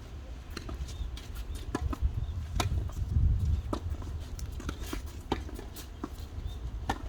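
Tennis rally in a doubles game: sharp, irregularly spaced knocks of racket strikes and ball bounces, with a steady low wind rumble on the microphone.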